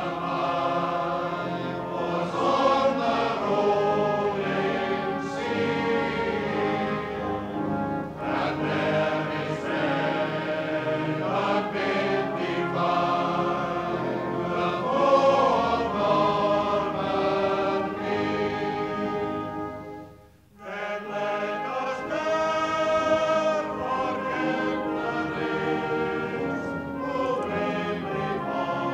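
Music with several voices singing together in a choir. It breaks off briefly about twenty seconds in, then resumes.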